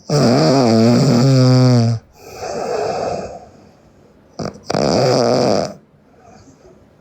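A sleeping person snoring loudly: two long, buzzing snores about four seconds apart, each followed by a softer, breathy rush of air.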